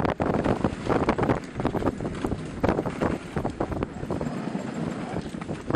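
Dog sled running over packed snow: a dense, irregular clatter and scraping from the runners and the sled frame, with wind rumbling on the microphone until about four seconds in.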